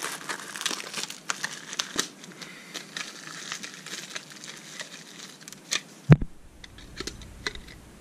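Clear plastic wrapping crinkling and tearing as a new wall light switch is pulled out of its packaging, with many small crackles, and one louder knock about six seconds in.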